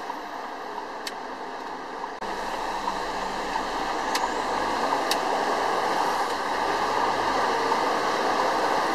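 Lorry cab interior while driving: steady engine and road noise, jumping louder about two seconds in and rising further as the truck gets moving. A few faint sharp clicks in the first half.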